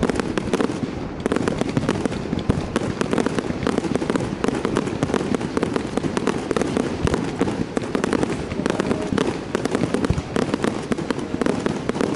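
Fireworks display: many aerial shells bursting one after another in a dense, unbroken run of bangs and crackling pops.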